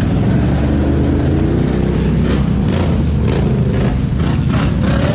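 ATV engine revving hard in a mud hole, its pitch rising and falling as the throttle is worked.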